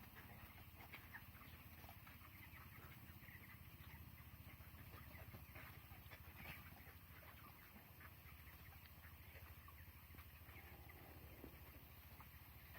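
Faint chirping and peeping from a flock of three-week-old broiler chickens, many short calls scattered over a steady low hum.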